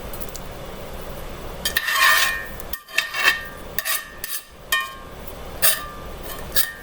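Metal spoon scraping and clinking against cookware while dishing up pasta: a run of short clinks and scrapes, some with a brief metallic ring, starting about a second and a half in.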